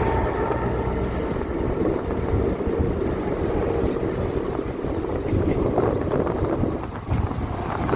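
A vehicle driving: steady engine and road rumble, with wind buffeting the microphone.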